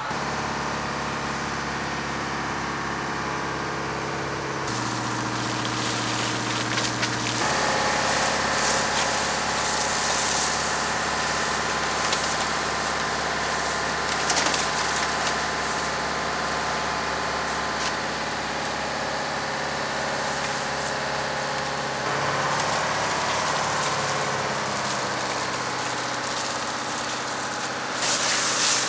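Fire engine's engine and pump running steadily, with a hiss of water spray or steam joining about five seconds in. The engine note shifts a few times.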